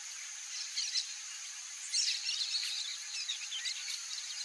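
Steady high-pitched insect drone with scattered short bird chirps; the loudest is a quick falling whistle about two seconds in, followed by a flurry of brief notes.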